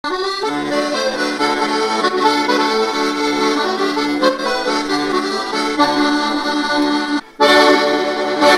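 Instrumental music with held chords over a steady, regular bass line. It drops out briefly near the end, then comes back on a loud final chord.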